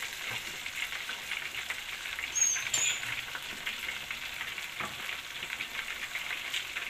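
Chicken pieces deep-frying fully submerged in hot oil in a stainless steel pot: a steady, dense crackling sizzle of bubbling oil. A brief high squeak sounds about two and a half seconds in.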